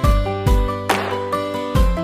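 Background music with a steady drum beat under a melody of held notes.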